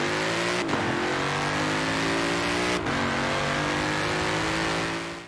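A car engine accelerating hard, its pitch climbing steadily and dropping suddenly at two gear changes, about a second in and near three seconds, then fading out at the end.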